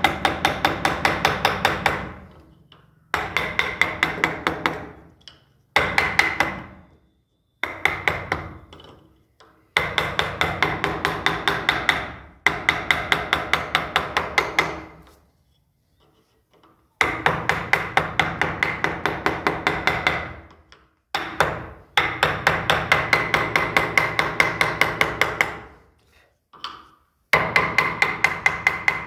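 Hand chisel driven into wood by hammer blows, in quick runs of taps about five a second with short pauses between runs. Each blow has a metallic ring.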